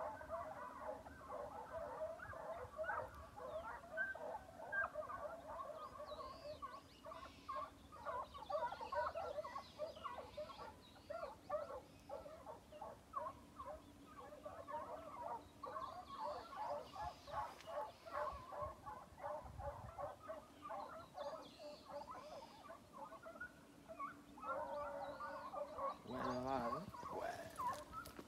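A pack of American foxhounds baying far off, many calls overlapping continuously: the hounds giving tongue as they run a hare's scent. One louder, nearer call stands out near the end.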